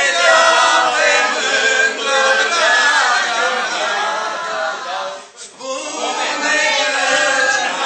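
A group of voices singing together without instruments, with a short break about five seconds in.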